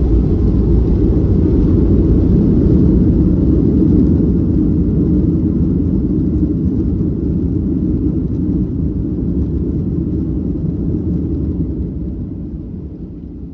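Inside an airliner's cabin during the landing rollout: a loud, low rumble of the engines and the wheels on the runway, fading steadily as the aircraft slows down.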